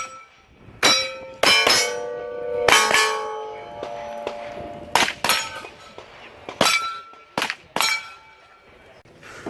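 A string of 9mm pistol-caliber carbine shots fired at steel targets, each hit followed by the ringing clang of the struck steel plate. The shots come irregularly, some in quick pairs, and one plate rings on for over a second.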